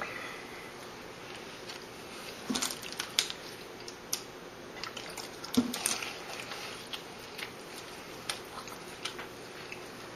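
A person chewing and biting into McDonald's double cheeseburgers: scattered soft clicks and wet smacks over steady room noise, with a few louder ones about two and a half and five and a half seconds in.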